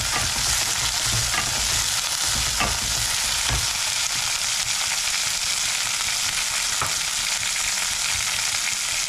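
Frozen sweet corn and peas sizzling in hot mustard oil in a stainless steel kadhai, with a few light knocks of a wooden spatula stirring them in the first few seconds, then a steady sizzle.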